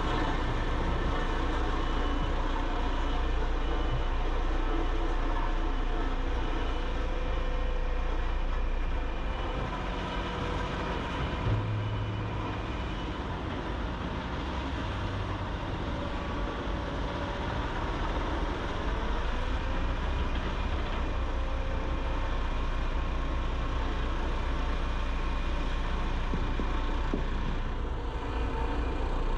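Diesel engines of heavy construction machinery running steadily, a continuous low engine rumble that eases slightly partway through.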